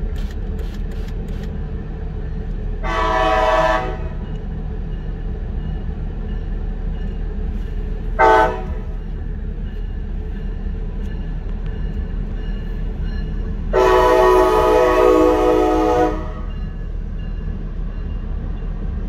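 Brightline passenger train's horn sounding three times at a grade crossing: a blast of about a second, a short toot, then a longer blast of over two seconds, the loudest. A steady low rumble runs underneath.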